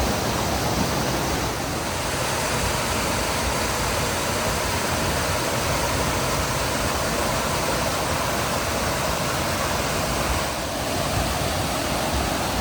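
Creek water rushing and cascading over rocks, a steady, full rush of white water.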